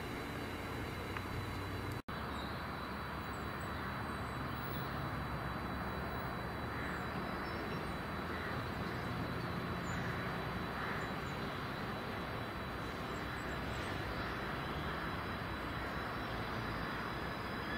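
Class 66 diesel locomotive's two-stroke V12 engine drawing near with a freight train, heard as a steady drone that rises slightly in pitch in the last few seconds.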